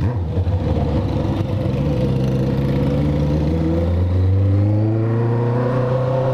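Honda CB650F inline-four engine running through a full stainless Atalla exhaust while riding. The note is steady, then slowly rises in pitch over the last couple of seconds.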